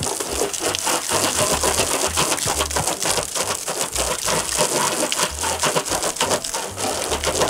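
Garden hose spray nozzle jetting water onto a car's body and wheels: a dense, crackling splatter of water with irregular low rumbles.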